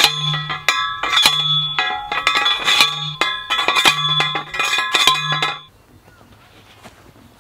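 Manual post driver pounding a steel T-post into the ground: repeated ringing metal clangs that stop about six seconds in.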